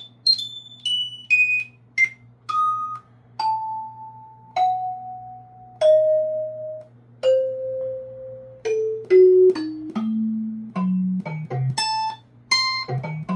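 Single-note keyboard instrument samples from an Akai MPC X SE playing one after another as its data wheel scrolls through a list of keys sounds. Each note starts with a click and rings at a new pitch, mostly stepping downward. They are quick at first, held about a second each in the middle, and quicker again near the end.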